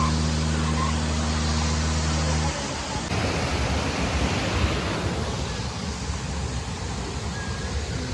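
Water rushing down a stepped concrete spillway: a steady, dense hiss of cascading water. For the first two and a half seconds a steady low hum runs underneath, then cuts off.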